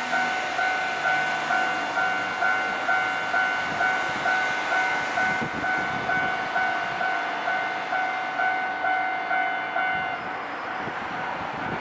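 Japanese level crossing's electronic warning bell ringing, a repeating ding a little over twice a second, which stops about ten seconds in.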